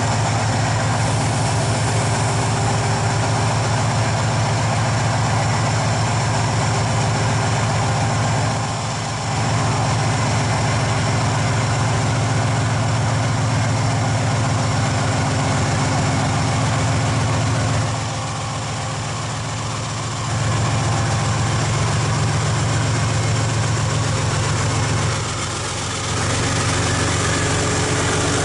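Diesel locomotive engine idling with a deep, steady drone. The sound drops briefly about nine seconds in, again for a couple of seconds around eighteen to twenty seconds, and once more near twenty-five seconds.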